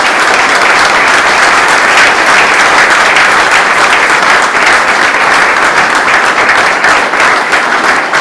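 Audience applauding: loud, steady hand-clapping from a room full of people.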